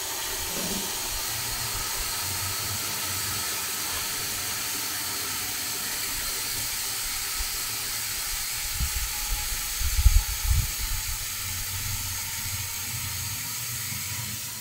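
Water from a garden-hose spray nozzle running steadily into a plastic pump-sprayer tank, a hissing rush. A few low thumps come around ten seconds in.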